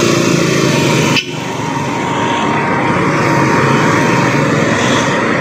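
A vehicle engine running close by, steady and loud, with a faint steady whine, briefly dropping off about a second in.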